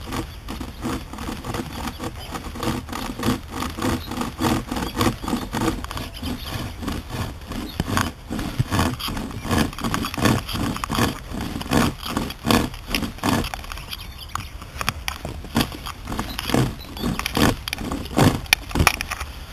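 A hand-pulled survival saw made from a chainsaw chain, drawn back and forth by its paracord handles through a thin tree trunk. It makes a steady run of sawing strokes, about two a second.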